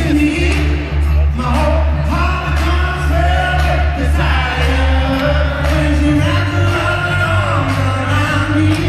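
Live rock band with male vocals and a heavy bass line; the bass moves up to a higher note about six seconds in.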